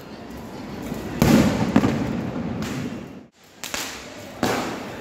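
Fireworks going off: a loud bang a little over a second in, with a sharper crack just after, then more bangs in the second half, each trailing off slowly.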